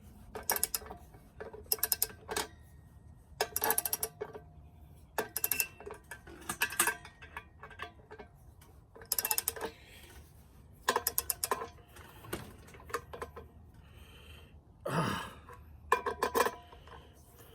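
Socket ratchet clicking in short bursts of rapid ticks, about nine strokes spread out with pauses between, as a nut is tightened on a 1/2-inch vise mounting bolt.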